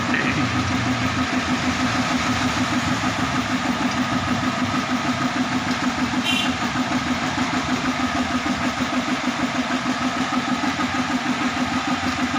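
An engine running steadily at idle, with an even, rapid pulse. A brief high tone sounds about halfway through.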